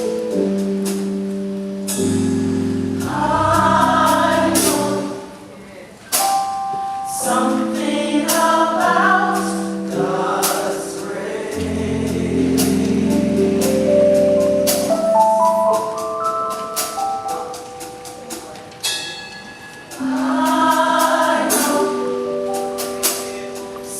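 Gospel choir with band accompaniment: sustained chords over a bass line and drum and cymbal hits, with the choir swelling in on wordless vocal passages a few times.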